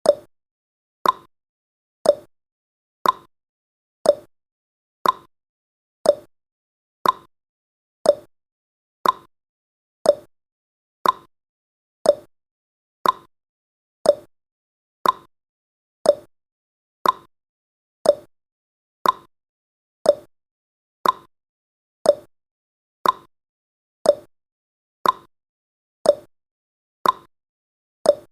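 Clock-tick sound effect of a countdown timer: one short, sharp tick each second, alternating slightly between a lower and a higher pitch like a tick-tock.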